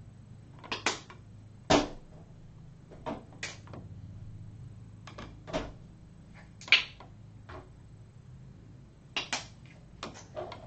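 Angle brush stroking acrylic paint onto a canvas board: about a dozen short brush strokes at irregular intervals, some in quick pairs, over a faint low steady hum.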